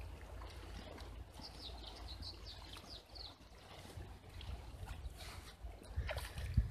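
Steady low rumble of wind on the microphone, with a bird giving a quick run of about eight short, high, falling chirps between about one and a half and three seconds in.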